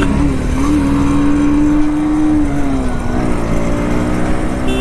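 Bajaj Pulsar NS125's single-cylinder engine running hard at high revs under full throttle. The pitch holds steady and then drops away about two and a half seconds in as the revs fall.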